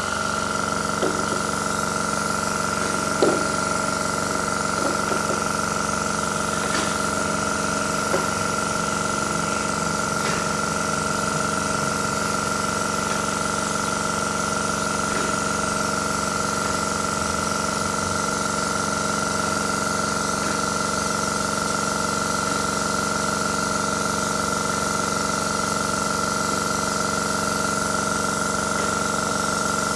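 A small motor running at a steady speed, a constant hum of several fixed pitches, with a few faint taps and scrapes of a hand-made marking tool against the board.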